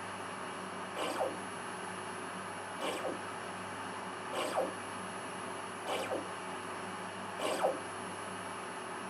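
Yaskawa industrial servo motor making short, repeated positioning moves during auto-tuning: five brief whines that rise and fall in pitch, about one every one and a half seconds, over a steady hum.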